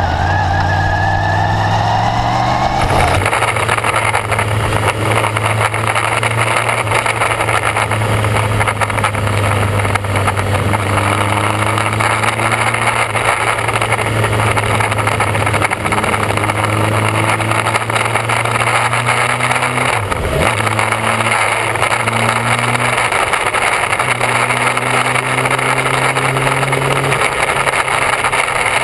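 Motorcycle engine heard from an onboard camera. For the first few seconds it pulls away and rises in pitch. Then the sound changes abruptly to steady cruising, with wind rushing over the microphone and a brief dip in the engine note about two-thirds of the way through.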